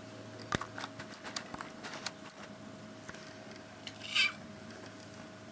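A hungry kitten gives one short meow about four seconds in, asking for food. Before it come several light clicks and taps.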